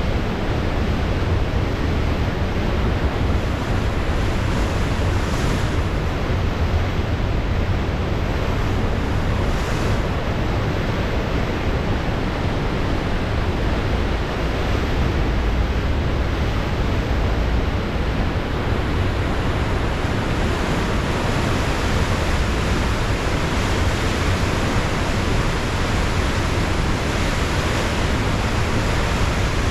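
Steady wash of ocean waves and wind, with a low rumble of wind buffeting the microphone; no single wave crash stands out.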